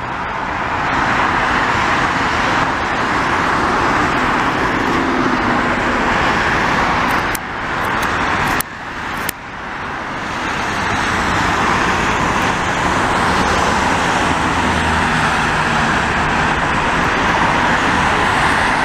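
Steady highway traffic noise: cars and trucks passing close by at speed, with continuous tyre roar on the road surface. It dips briefly twice around the middle, with a few clicks.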